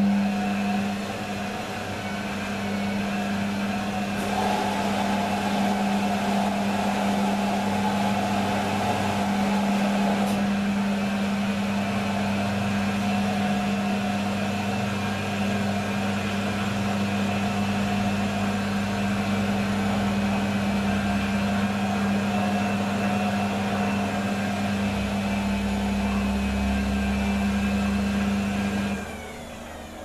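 Beko front-loading washing machine running, its drum turning with a steady motor hum. About a second before the end the motor cuts out and the sound drops away.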